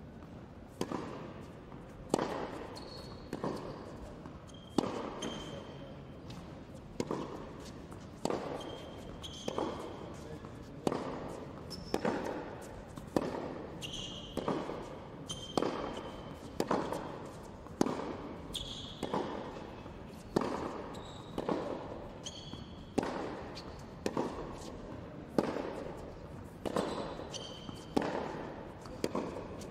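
Tennis practice rally on an indoor hard court: racquet strikes on the ball about once a second, each ringing on in the hall, with short high shoe squeaks on the court between shots.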